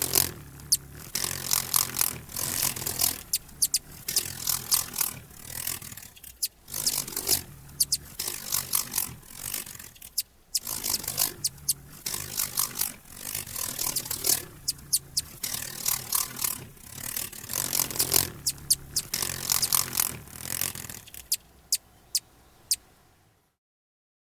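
Hummingbirds chirping in many quick, high chips over the low buzzing hum of their wings; the sound cuts off shortly before the end.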